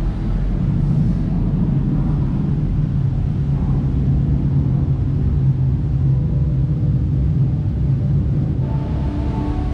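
A steady low rumble, with a few sustained musical tones coming in near the end.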